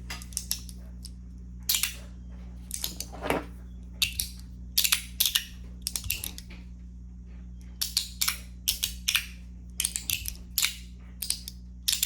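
S-Nano fidget push slider being worked by hand, its parts snapping into place with sharp clicks, singly and in quick pairs and triplets at irregular spacing.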